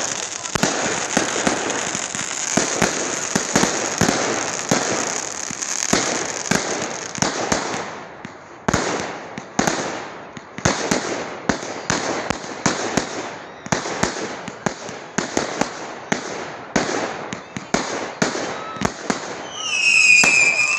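Fireworks going off: a dense crackling barrage with many sharp cracks, thinning about eight seconds in to a string of separate sharp bangs, one or two a second. A high whistling tone sounds near the end.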